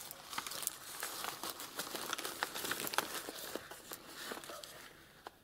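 Rustling and crinkling as the pages of a handmade fabric book are handled and turned, with many small sharp crackles. It dies down near the end.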